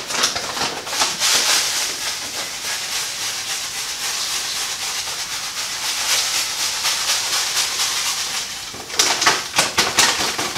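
Carapils malt pouring from a bag into a cooler mash tun: a steady hiss of falling grain for about eight seconds. It gives way to fast, crackly rustling near the end.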